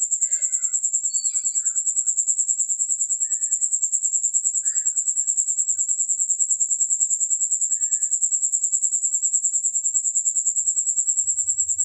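A cricket chirping in a fast, even, continuous trill at one high pitch.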